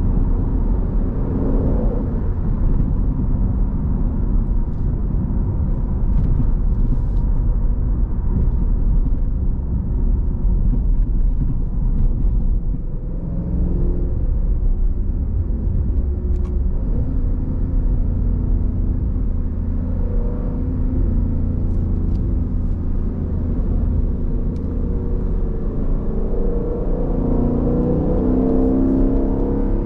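Jeep Grand Cherokee SRT's 6.4-litre HEMI V8 and exhaust in sport mode, heard from inside the cabin over steady road and tyre rumble. The engine note swells and rises in pitch a few times, most plainly near the end.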